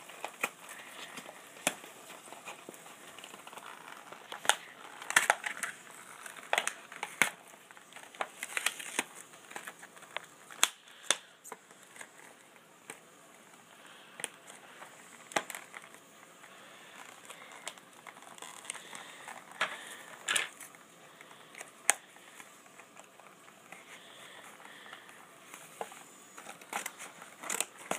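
Cardboard toy box being pried open and torn by hand: irregular sharp crackles and crinkling of cardboard and paper, with a quieter stretch in the middle. Scissors cutting into the packaging near the end.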